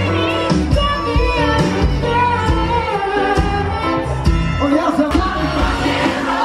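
Live pop music from a stage show: a singer over a band backing with a steady beat, heard from the audience in a large theatre.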